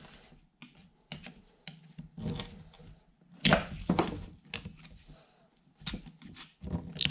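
Screwdriver tips clicking and scraping on the C-clip and rusty spindle housing of a John Deere mower deck spindle as the retaining clip is pried at. The clicks come in uneven light taps, with louder ones about three and a half seconds in and again near the end.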